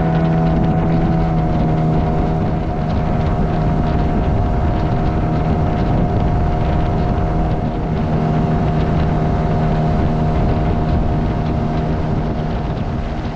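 Outboard motor of a small inflatable boat running steadily at speed, its hum holding one pitch, with rushing water and wind noise around it.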